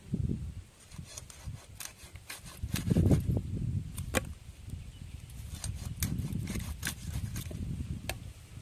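Fish being cut up by hand: scattered sharp clicks and knocks with a few dull thumps as pieces are cut and handled.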